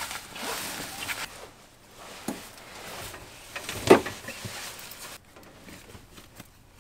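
Handling noise from someone settling onto a sleeper-train bunk: fabric and bedding rustling and shuffling, with one sharp knock about four seconds in. It quietens after about five seconds.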